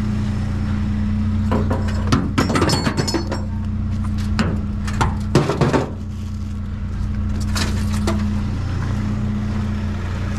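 An engine idling steadily, with bursts of metallic clinking and rattling as small pieces of scrap are handled, about two seconds in, again around five seconds and briefly near eight seconds.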